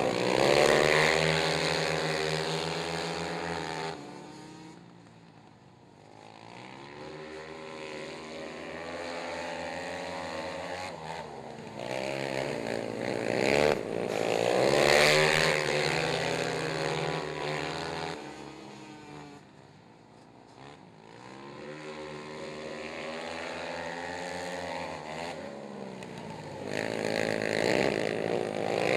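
Small quad ATV engines racing, pitch rising and falling as the riders throttle through the corners. The sound swells as the pack passes close, near the start, about halfway and again near the end, and fades between as they go round the far side of the track.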